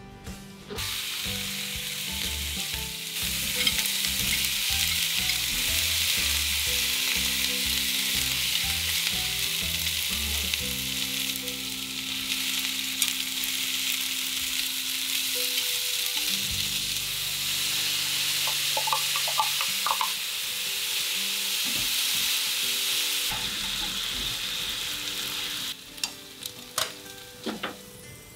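Pork, then potatoes, onions, shimeji mushrooms and fried tofu sizzling in hot oil in a nonstick frying pan, growing louder a few seconds in. The sizzling stops about three seconds before the end, followed by a few light clinks of the pan.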